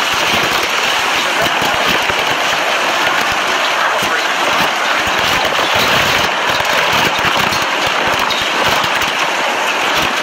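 Tornado wind with driving rain: a loud, steady, dense hiss full of fine crackling patter.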